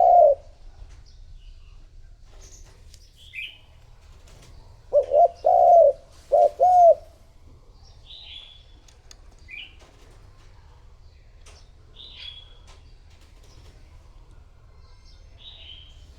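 Spotted dove cooing: the tail of one phrase right at the start, then a phrase of four or five low, hollow coos about five seconds in. Short high chirps from small birds come now and then between the phrases.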